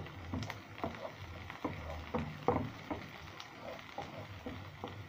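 A spatula stirring chopped onions and green peppers in a nonstick frying pan, making irregular scrapes and knocks, a few a second.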